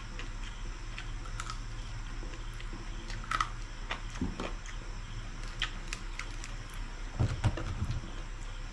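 Chewing and crunching crispy pata, deep-fried pork leg: irregular crisp crackles and wet mouth clicks, with a steady low hum underneath.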